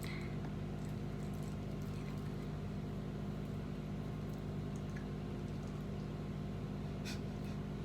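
Steady low hum of a running machine, with a few faint clicks, one of them about seven seconds in.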